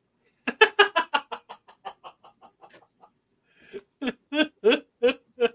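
A man laughing: a run of quick pitched 'ha' pulses that fades away over about two and a half seconds, then a second burst of laughter near the end.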